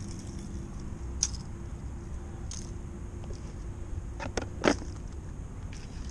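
A few short, sharp clicks and knocks from handling gear at an open plastic tackle box and picking up a fishing rod, the loudest near the end. A steady low rumble lies underneath.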